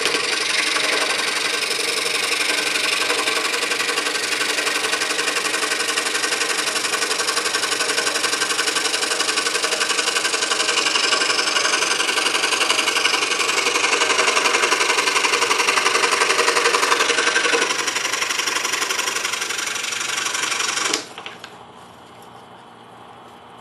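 DeWalt scroll saw running, its fresh Olson number 5 blade cutting through a stack of three pieces of wood with a steady, rapid rasping buzz. Near the end the sound stops abruptly.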